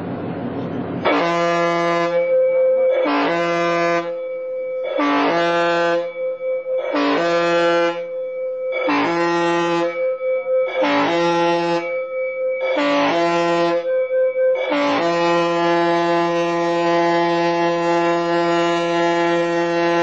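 MS World Renaissance's ship horn sounding seven short blasts about two seconds apart, then one long blast. This is the pattern of the general emergency alarm signal.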